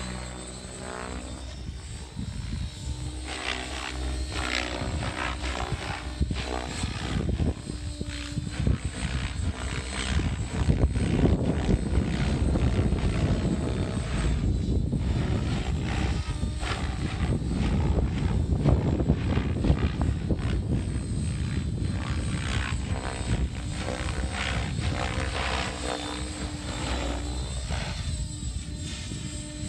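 Thunder Tiger Raptor E700 electric radio-controlled helicopter flying 3D aerobatics: its main rotor blades chop and swish and its electric drive whines. The sound swells and wavers in pitch as it swoops about, loudest around the middle.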